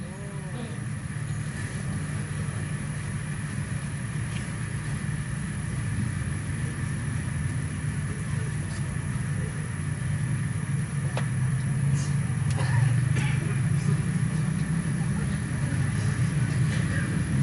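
Low, steady rumble that slowly grows louder, with a few faint clicks over it; no recitation is heard.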